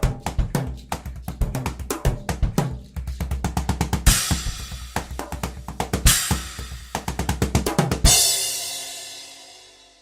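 Music driven by a drum kit: fast bass and snare drum hits with cymbal crashes about every two seconds. The final crash, about eight seconds in, rings out and fades away as the piece ends.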